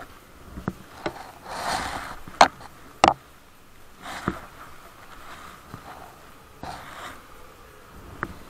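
Handling noise from the camera being moved about: a few sharp knocks, the loudest two about two and a half and three seconds in, with short rustling rushes between them.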